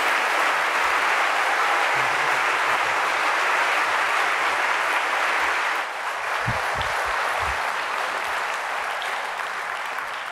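Audience applauding steadily, dipping briefly about six seconds in and tapering off near the end.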